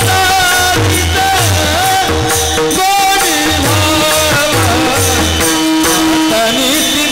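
Male voices singing a Warkari kirtan melody (chal) in unison, accompanied by many brass hand cymbals (taal) struck in a steady rhythm.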